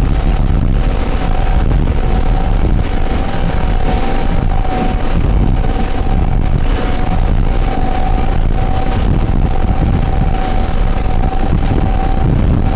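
Powerboat running at speed, heard on board: a steady loud engine drone with a thin steady whine, mixed with rushing wind and water.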